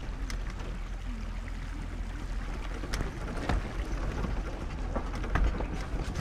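Jeep 4x4 creeping over a rocky creek bed, loose stones crunching and knocking under the tyres, over a steady low rumble of engine and wind on the microphone.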